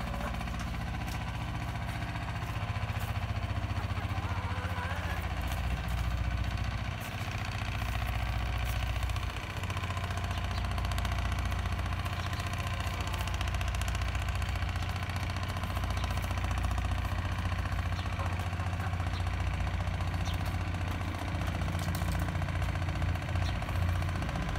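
A steady low engine hum, like a motor idling, running without a break, with a few faint clicks over it.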